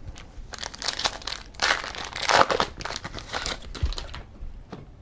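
Trading card pack wrapper crinkling and crackling as it is handled, in an irregular run of sharp crackles, loudest around the middle.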